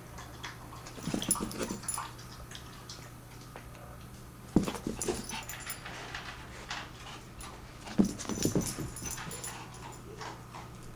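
Small dog, a Pomeranian, barking and whimpering in short bursts: a cluster about a second in, then sharper yips about four and a half and eight seconds in, each followed by a few more.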